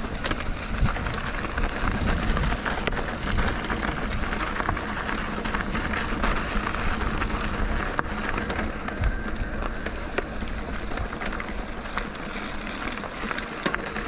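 A mountain bike riding over a rough, rocky trail. Tyres rumble and crunch on the ground, the bike rattles and knocks irregularly, and wind buffets the microphone.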